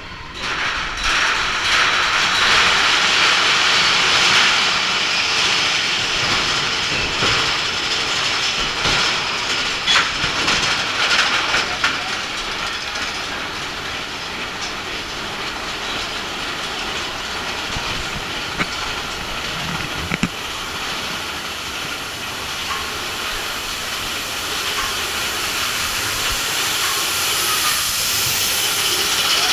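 Big Thunder Mountain Railroad's mine-train roller coaster rolling along its track, a steady rushing rattle with scattered clanks and knocks.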